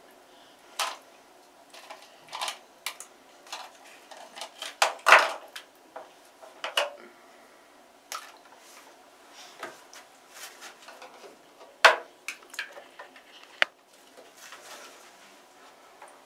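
Scattered, irregular plastic knocks and clatters, the loudest about five seconds in and again near twelve seconds: a toy fishing net's plastic rim and handle bumping against a plastic basin and the plastic toy fish.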